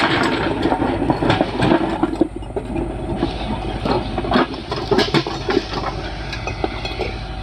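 JCB backhoe loader's diesel engine running steadily, with irregular clanks and rattles throughout as it works.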